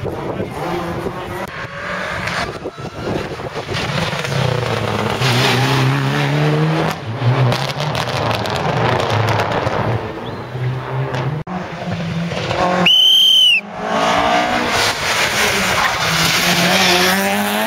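Rally car engines revving hard on the stage, pitch climbing and dropping through gear changes as the cars come past. Late on there is a brief, sharp high-pitched squeal.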